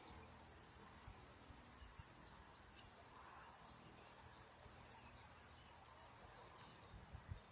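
Near silence: outdoor quiet with faint, scattered high bird chirps and a few soft knocks.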